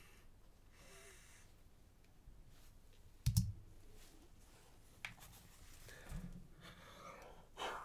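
Quiet room with handling noise as headphones are lifted off and he shifts at the desk: scattered clicks and soft knocks, the loudest a sharp knock with a low thud a little after three seconds in.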